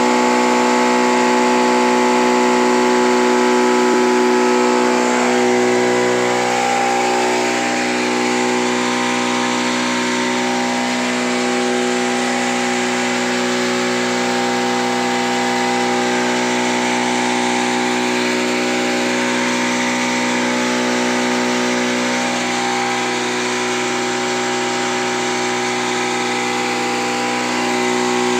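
A 10 HP herb grinding machine running steadily: a constant loud mechanical hum made of several steady tones, with an even rushing noise over it.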